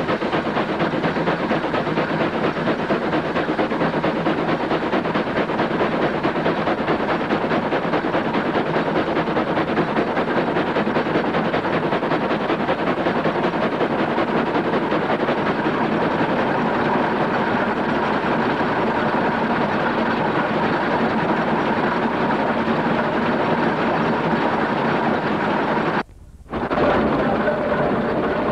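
Steam traction engine running along the road: a steady, loud mechanical clatter mixed with the hiss of steam. The sound drops out for about half a second near the end, then a similar steady running noise resumes.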